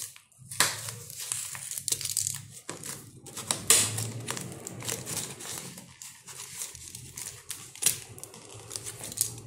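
A utility knife scraping and cutting at the taped paper wrapping of a parcel, with the paper and plastic packaging crinkling as it is handled: irregular scratches and crackles.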